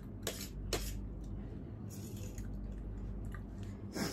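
Eating utensils clinking against a bowl, with wet squishing of noodles being eaten: two sharp clinks in the first second and another near the end.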